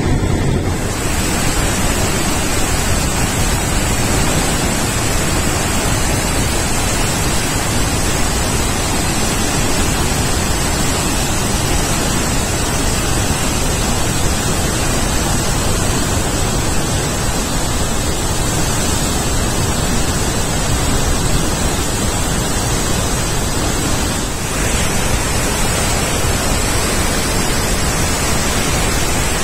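Steady, full-bodied roar of the Murchison Falls waterfall: the Nile crashing through its gorge as a continuous rush of water.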